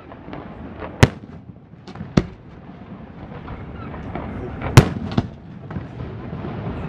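Aerial firework shells bursting overhead. There are four sharp bangs, the loudest about five seconds in and followed closely by another, over a steady low din.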